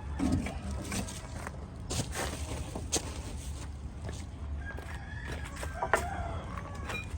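Scattered knocks and taps, with a drawn-out call held on a steady pitch for about a second and a half, starting a little after four seconds in.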